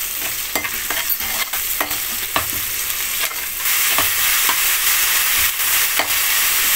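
Shallots, onions and dried red chillies sizzling in hot oil in an aluminium kadai, with the steel ladle clicking and scraping against the pan as it stirs. About halfway through, as tomatoes go in, the sizzle gets louder.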